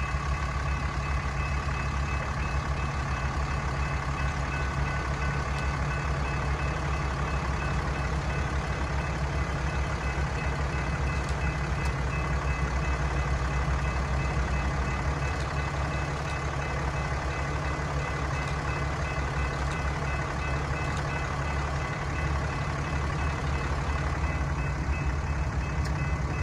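Diesel-electric freight locomotive running at low throttle, a steady low drone with a thin whine over it.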